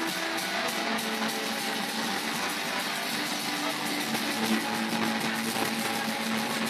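Live acoustic guitar strumming with a man singing into a microphone, over a steady background din.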